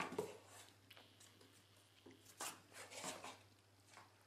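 A few faint, short scratches and rustles of a cat's paws and body moving on a box, over a low steady hum.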